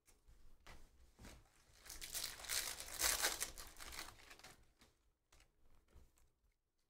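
Shiny plastic wrapper of a Panini Donruss basketball hobby pack crinkling and tearing as it is ripped open by hand. The sound is loudest two to three seconds in, then thins to faint rustles.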